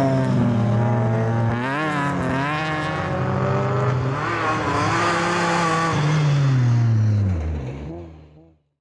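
BMW 3 Series (E46) rally car engine revving hard through a corner, its pitch rising and falling again and again with throttle and gear changes. The sound fades away to nothing near the end.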